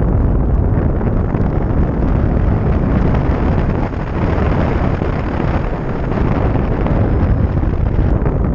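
Wind rushing over a GoPro's microphone in flight on a hang glider: a steady, loud wind buffet, heaviest in the low end.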